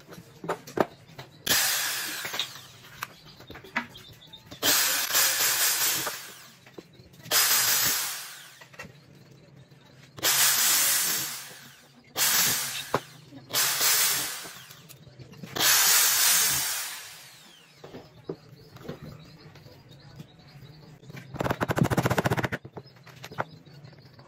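Handheld electric drill boring into a curved piece of roller stock in about seven short bursts, each trigger pull running a second or two and trailing off as the motor spins down. Near the end comes a brief, rapid clatter of clicks.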